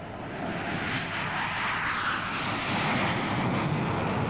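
Three Rolls-Royce Spey turbofan engines of a de Havilland DH.121 Trident airliner at takeoff power as it lifts off: a steady jet roar that grows louder over the first second and then holds.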